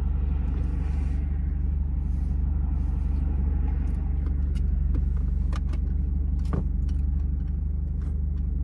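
Steady low hum of a car engine idling, heard from inside the cabin, with a few small clicks over it.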